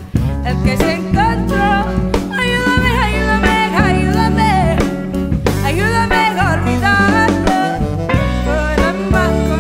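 A live jazz band plays: electric bass and drum kit under a bending lead melody, with guitar and tenor saxophone in the group.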